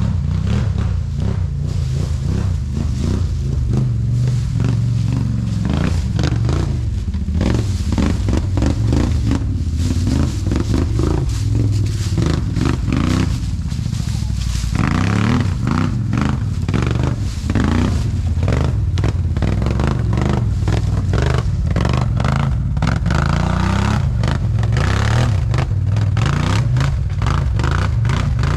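ATV engine revving up and down under load as the quad works through a rocky, muddy stream bed, with frequent clattering and scraping of tyres and chassis over stones.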